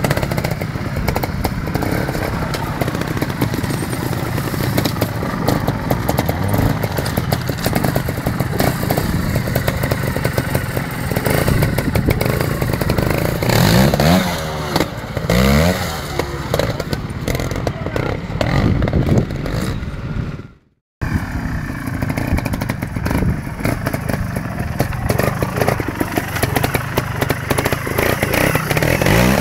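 Beta trials motorcycle engine revving in short bursts as the bike climbs over rocks, with a rising run of revs about halfway through. Short knocks and clatter run through it, and the sound cuts out for an instant about 21 seconds in.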